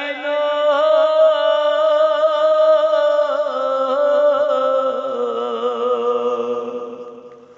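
Noha lament: a male voice holding a long chanted note over a steady lower drone, the sound fading out over the last couple of seconds.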